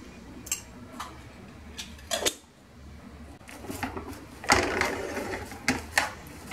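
A spatula stirring chopped onion in a nonstick frying pan. A few light knocks come first, then from about four seconds in there is continuous scraping and rustling, with clicks as the spatula strikes the pan.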